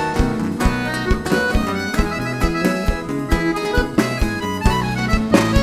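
Instrumental break of a live gaúcho folk band: accordion and acoustic guitars playing over electric bass and drums, with a steady beat.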